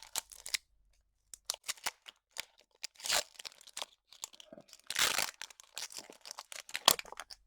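A Pokémon card booster pack's foil wrapper being torn and crinkled open, a run of sharp crackles and short rips, with the loudest tears about three and five seconds in.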